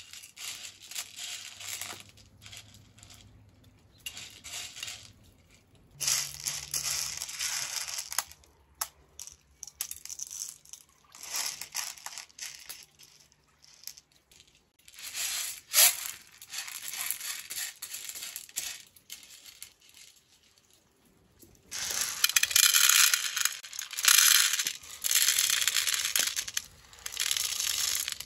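Dried chickpeas and white beans rattling and clicking against a metal tray as they are picked over by hand. Near the end they rattle much louder as they are slid off the tray into a metal pot.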